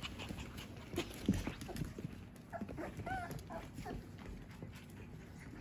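Cavapoo puppies giving a few short, high whimpers and yips during rough play, clustered around the middle, over scattered light taps and clicks.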